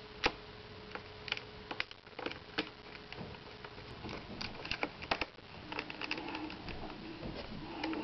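Irregular light clicks and taps of a small Torx screwdriver working the screws that hold the LCD panel into an iMac, with the tool knocking against the screw heads and frame.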